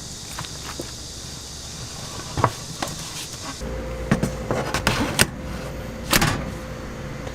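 Kitchen work sounds: scattered sharp knocks and clicks of utensils and cookware over a steady background hum. A high hiss cuts off suddenly about halfway through.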